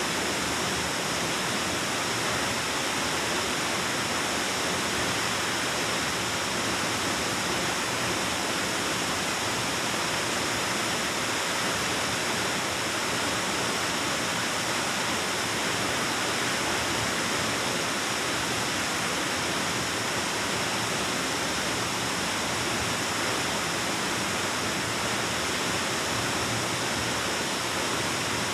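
Waterfall pouring steadily into a pool, a constant rushing of water with no change in level.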